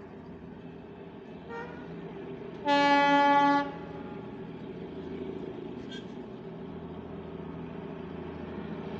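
A horn gives one loud, single-pitched blast of about a second, with a short faint toot just before it. Under it runs a steady engine hum that slowly grows louder as the Darjeeling Himalayan Railway diesel locomotive approaches.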